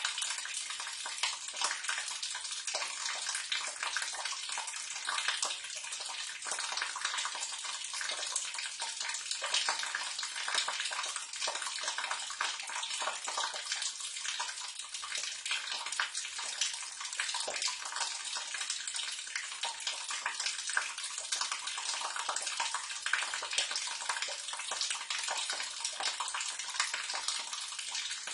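Water running and splashing steadily down into a sewer drain or gully, a continuous trickling spatter with many small drips.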